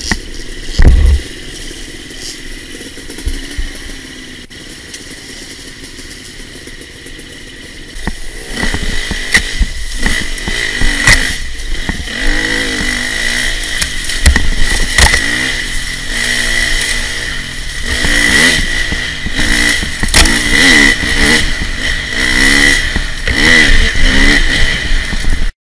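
Enduro dirt bike engine heard from on the bike, lower for the first several seconds, then revving up and down over and over as it is ridden hard through mud and water. A loud knock about a second in, and more knocks and clatter from the bike over the rough ground.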